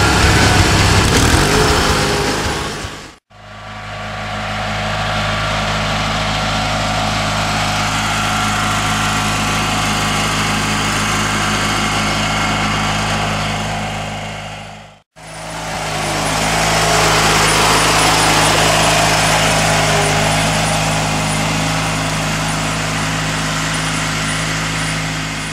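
Ride-on lawn mower's engine running steadily at an even pitch, cut off briefly twice.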